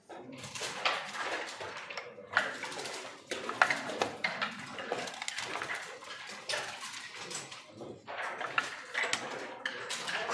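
Backgammon checkers clacking onto the board and dice clattering, a series of sharp irregular clicks over a steady room background.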